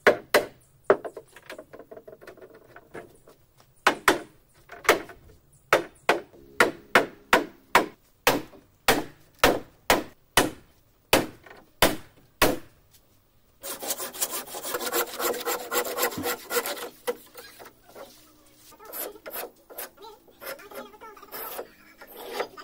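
Hammer blows on the wooden hull planks of a boat under construction: a long run of sharp strikes, about two to three a second, for the first twelve seconds. Then come a few seconds of continuous rasping as wood is shaved or cut, and short scraping strokes of a small hand plane on the wooden stem post near the end.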